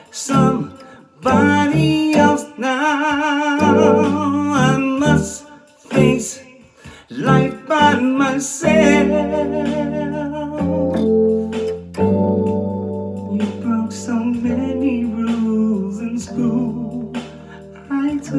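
A man singing into a microphone over instrumental backing, in wordless wavering runs with vibrato. About halfway through the voice drops back, and steady held chords carry on beneath short vocal phrases.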